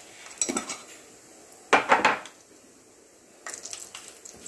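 Kitchen utensils clinking and clattering against a pan as dry spices are added: a few short clusters of clicks, with the loudest clatter about two seconds in.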